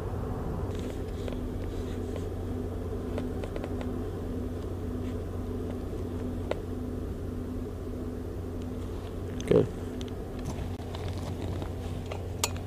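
A steady low hum with a faint tone pulsing about twice a second, under scattered small clicks and knocks of gear being handled; one louder short sound about nine and a half seconds in.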